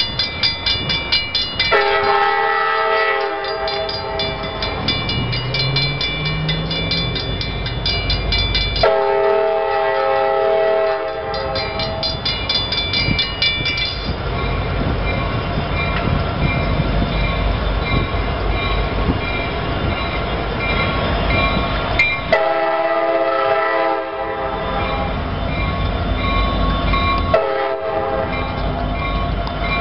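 CSX diesel freight locomotives approaching with their horn sounding four blasts, two long and then two shorter, the signal for a grade crossing. A crossing bell rings rapidly throughout, over the low rumble of the diesel engines.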